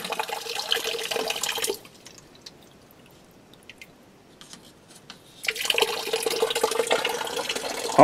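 Water-heater flush water pouring from a garden hose into a floor drain, a steady splashing run. Near the start it falls to faint dripping for a few seconds, then the splashing comes back. The water is running clear, showing the tank's sediment has been flushed out.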